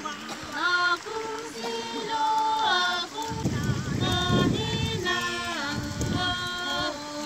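Women's voices singing a song together, several voices holding notes at once. A low rumble joins in from about three to six seconds in.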